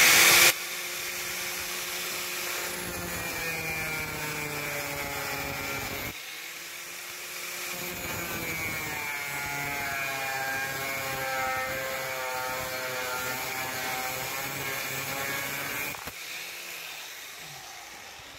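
Angle grinder with a thin cutting disc cutting through steel angle bar: a steady grinding with a whining motor tone, dipping briefly about six seconds in. Near the end the grinder is switched off and its motor spins down with a falling whine.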